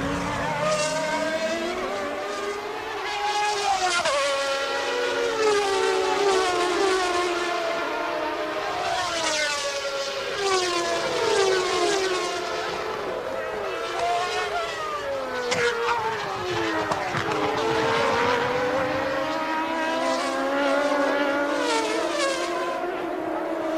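1992 Formula One cars' engines running at high revs, several at once, their pitch rising and falling through gear changes as the cars pass.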